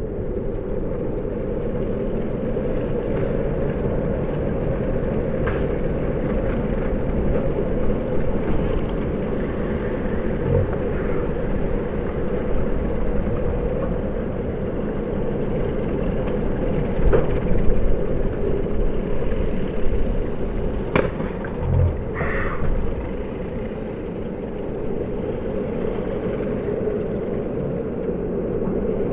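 Steady rumble of wind and road noise on a moving action camera, with a few sharp clicks scattered through the middle.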